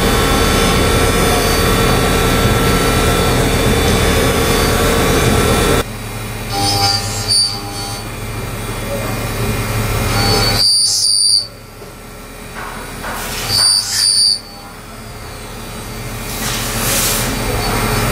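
Mori Seiki CNC machining center running while cutting a metal part: a loud, steady machine noise that drops suddenly about six seconds in, then quieter running broken by several short high-pitched squeals.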